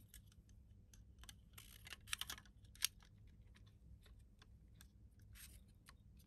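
Faint plastic clicks and rattles of a spider shock mount being handled as an AKG studio microphone is fitted into it, with a cluster of clicks about two seconds in and one sharp click just before three seconds.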